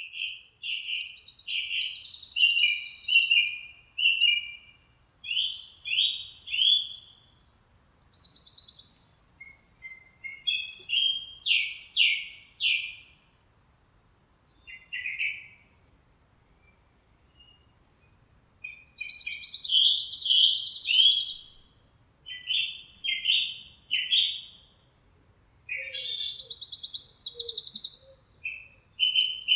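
Songbirds singing: phrases of quick, rapidly repeated chirping notes, some buzzier and higher, with short pauses of a second or two between phrases.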